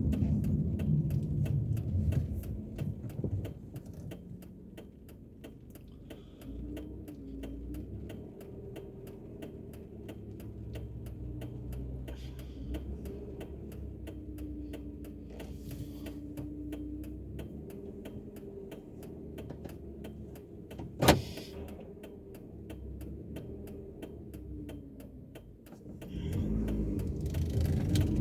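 Car running on the road, heard from inside the cabin: a low rumble that drops in level after about three seconds, with the engine's pitch gently rising and falling. A faint regular ticking runs under it, and a single sharp click comes about 21 seconds in.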